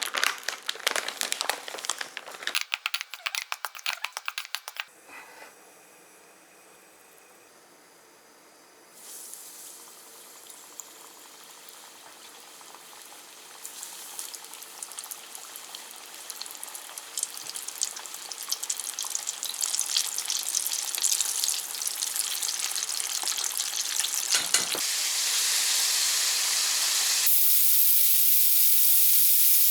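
Food frying in a hot pan: a sizzle that builds steadily and turns into a loud, steady hiss over the last few seconds, after some crackling clicks at the start and a brief thump near the end.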